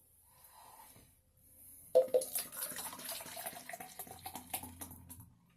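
Beer being poured into a glass: a sharp knock about two seconds in, then about three seconds of pouring with crackling fizz, the faint pitch rising slightly as the glass fills, stopping shortly before the end.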